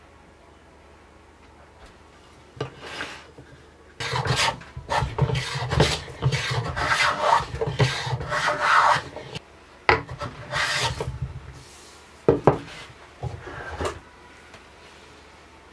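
Hand plane shaving a walnut table leg to a taper. After a couple of quiet seconds there is a run of rasping cutting strokes in quick succession, with short pauses between the runs, stopping about a second before the end.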